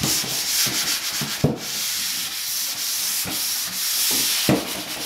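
Drywall pole sander rubbing dried joint compound on a wall in a light dusting pass: a continuous scratchy hiss that swells and fades with each stroke, with a few sharp knocks along the way.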